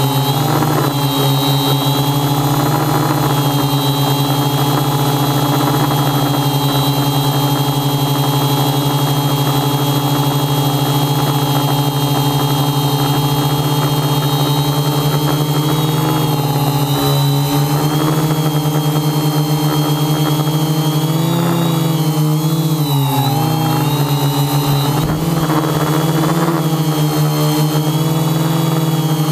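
Electric motors and propellers of a quadcopter drone whirring steadily in flight. The pitch wavers and dips several times between about 17 and 25 seconds in, then settles again.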